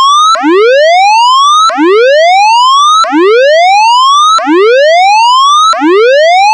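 Tsunami warning siren sounding its whoop signal: a loud tone that sweeps steeply upward, drops back and sweeps up again about every second and a half. It signals a tsunami warning to evacuate the red, orange and yellow evacuation zones.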